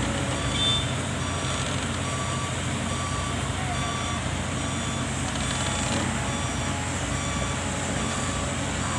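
Excavator's diesel engine running steadily while its travel alarm beeps at an even pace, about once a second, the warning given while the machine is travelling.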